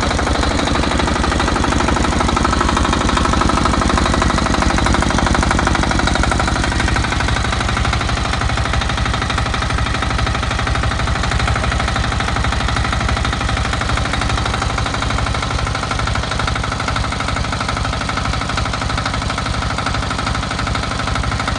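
Pressure washer running steadily with a fast, even pulsing rattle while drawing its water from a bucket through a double strainer; its tone thins slightly about seven seconds in.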